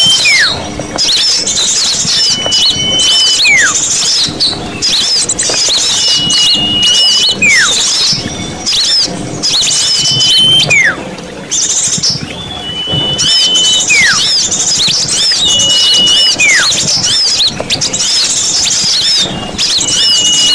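Bird-lure recording of many small songbirds calling at once: dense high chirping and twittering, with a steady high whistle and then a falling whistle repeating about every two seconds.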